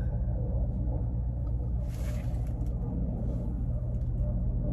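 A truck's engine idling, heard as a steady low hum from inside the sleeper cab. There is a brief hiss about two seconds in.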